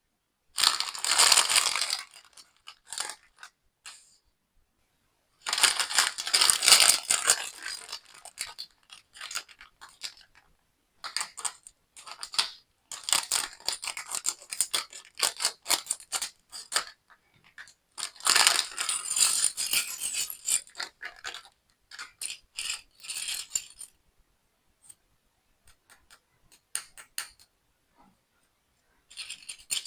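Small plastic building-kit pieces and their packaging handled close to the microphone: bursts of clattering, clinking and crinkling separated by short pauses, the biggest bursts about a second in, around six seconds in and around nineteen seconds in.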